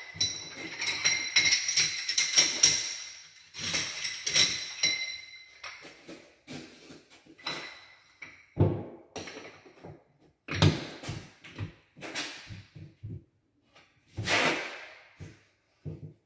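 Scattered knocks and short clatters of ceramic mosaic tile pieces being handled and set down on a countertop, then pressed onto the wall. A high steady tone sounds over the first few seconds.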